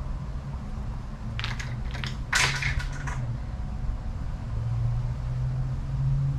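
Heavy fishing leader line and its rig hardware crackling and rustling in the hands while being coiled up, with a short cluster of crackles about one and a half to three seconds in, over a steady low hum.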